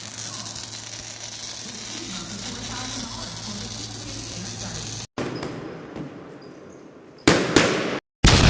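A steady hiss over a low electrical hum, with faint voices. After an abrupt cut, loud whoosh sound effects come near the end.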